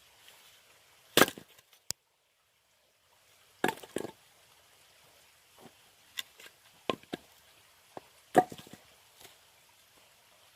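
Axe chopping oak firewood. Three heavy, sharp blows land about a second in, near four seconds and about eight seconds in, with lighter wooden knocks and clatters between them.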